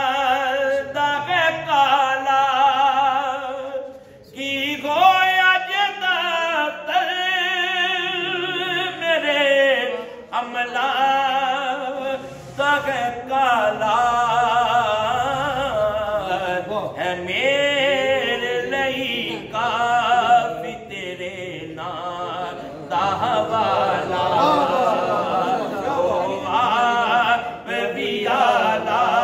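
A man singing a Punjabi naat, a devotional song in praise of the Prophet, without instruments. He holds long notes with wavering ornaments, breaking briefly for breath a few times.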